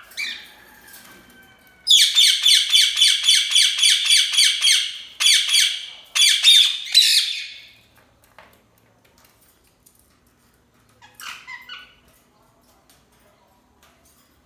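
Parrot calling loudly: a fast run of harsh, repeated shrieks at about four a second, then two longer bursts of calls. After a pause there is one short call near the end.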